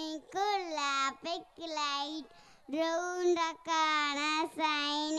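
A young girl singing solo and unaccompanied into a microphone, in short phrases separated by brief pauses, holding long steady notes in the second half.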